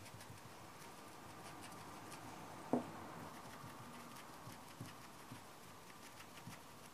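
Faint, repeated light dabbing and patting of a paint-loaded brush on denim fabric, with one sharper knock about two and a half seconds in.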